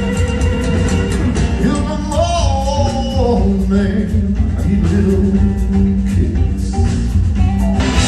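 Live rock band playing an instrumental passage: a steady drum beat and bass line under an electric guitar lead whose notes bend up and down for a moment about two seconds in.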